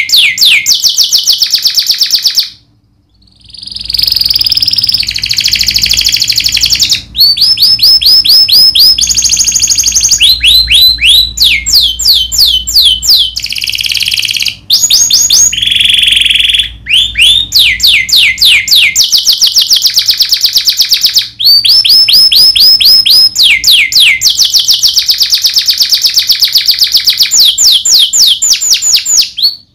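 Domestic canary singing loud, sharp rolling song: fast runs of repeated downward-sweeping notes alternating with sustained buzzy rolls, broken by a short pause about three seconds in.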